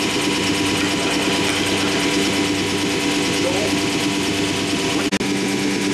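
Steady mechanical hum of an Anderson Stratos Pro CNC router's machinery running while the machine sits ready, broken by a brief drop-out and click about five seconds in.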